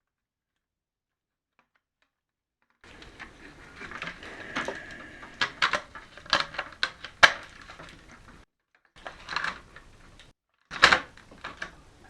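A run of sharp clicks and knocks with handling noise, in three stretches separated by short gaps. This is typical of parts being handled and worked on by hand.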